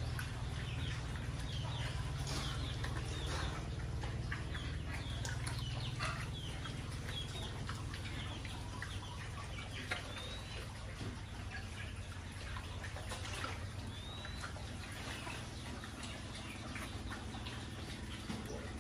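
A pen of pigs eating from troughs: a dense, busy run of wet chewing, smacking and slurping.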